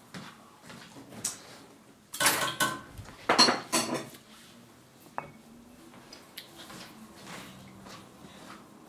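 Dishes and kitchenware clattering in two loud bursts, about two and three and a half seconds in, with a ringing of crockery or metal, then a single sharp clink a little after five seconds.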